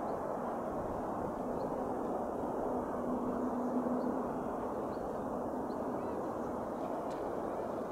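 Steady distant rumble with a short low hum about three seconds in, and small birds chirping faintly now and then.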